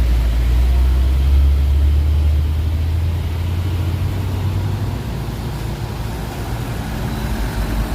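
Heavy vehicle's deep engine rumble with traffic noise, loud for the first few seconds and easing off about five seconds in.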